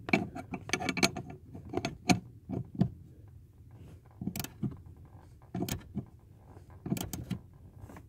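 Hand wrench tightening a 15 mm bolt on a clutch pedal assembly: short bursts of metallic clicking, about six times, with pauses between strokes.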